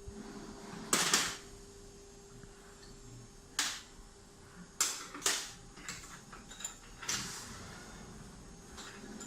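Five or six short, sharp knocks and scrapes from tools and parts being handled while a CNC router spindle is taken apart for bearing replacement, over a faint steady hum.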